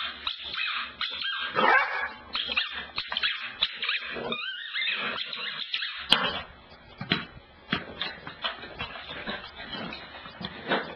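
Beagle puppy yipping and whimpering in short high-pitched bursts, with a run of sharp clicks and scuffles in the second half.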